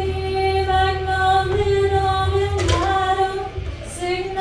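A singer holding long, steady wordless notes into the microphone for a vocal level check, with a short break about two and a half seconds in before the note picks up again. A low hum runs underneath for most of the time.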